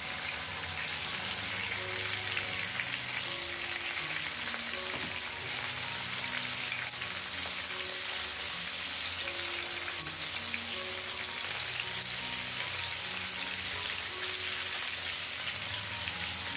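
Marinated chicken pieces sizzling steadily in hot oil in a nonstick frying pan over a high flame.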